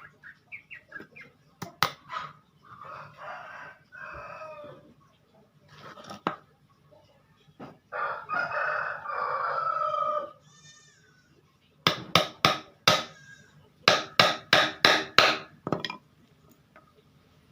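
A rooster crowing twice, each crow about two seconds long. Near the end come two quick runs of sharp knocks.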